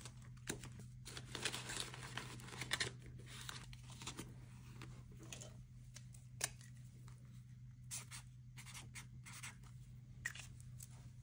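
Faint rustling of paper bills and a plastic binder sleeve, with a pen scratching on a paper sticky note in short strokes and a couple of light clicks.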